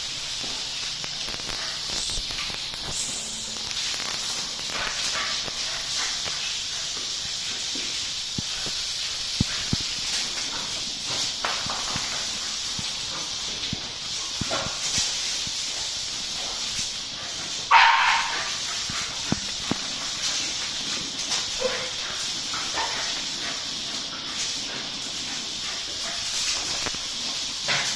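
Steady hiss of water spraying from a garden hose, with dogs barking now and then; the loudest bark comes about 18 seconds in.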